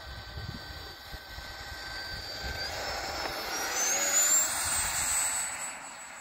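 Electric ducted fan of an 80 mm radio-controlled Dassault Rafale jet model whining as it is throttled up for the takeoff roll. Its pitch steps up about two and a half seconds in and climbs to a high whine, loudest around four to five seconds in, then fades as the jet runs away down the runway.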